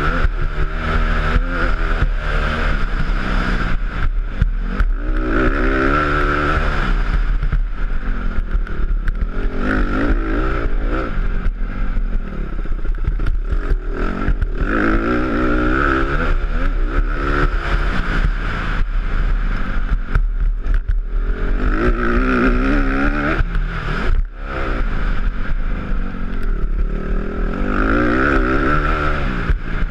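Honda CRF150 dirt bike's four-stroke single-cylinder engine revving up and falling back over and over as it is ridden hard round a motocross track, with knocks and rattles from the bike over the bumps.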